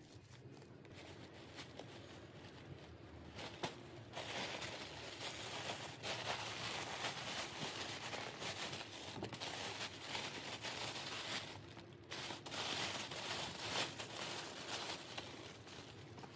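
Tissue paper and a fabric dust bag rustling and crinkling as they are handled and pulled away from a leather bucket bag, in faint, irregular bursts that start about four seconds in and pause briefly around two-thirds of the way through.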